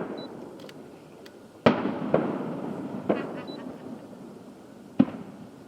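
Aerial fireworks shells bursting: four sharp booms over several seconds, the loudest near the start, each trailing off in a long rumbling echo, with a brief crackle just after the third.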